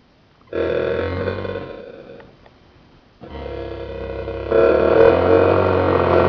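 Circuit-bent electronic sound device (The Thing II) in drone mode, giving a synthetic monster drone made of many steady tones at once. It starts about half a second in and fades away over a second or so, then comes back about three seconds in and gets louder about a second later.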